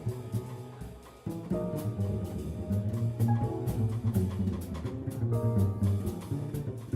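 Jazz band playing live: double bass notes low down, drum kit with cymbals, and guitar chords. The band drops away briefly about a second in, then comes back in together.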